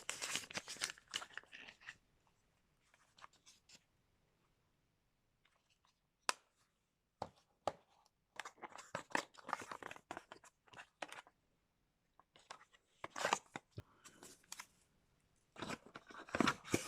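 Product packaging being handled and opened: irregular bursts of crinkling, crunching and tearing of plastic and cardboard, with short pauses and a sharp click about six seconds in.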